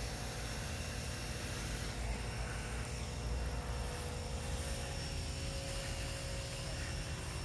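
A steady low mechanical drone with a constant hum and a low rumble underneath, like a running engine.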